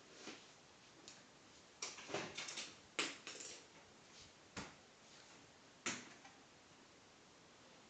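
Scattered light knocks, clicks and brief scrapes from a refrigerator being shifted over a floor: a cluster of them about two to three and a half seconds in, then two single sharp knocks, with quiet in between.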